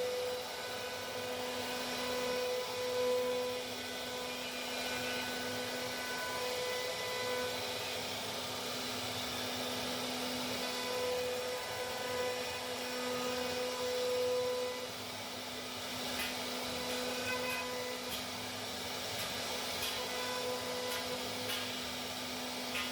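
CNC router spindle running and cutting plastic: a steady whine of several tones over a hiss, swelling and easing as the bit works, with a few faint ticks near the end.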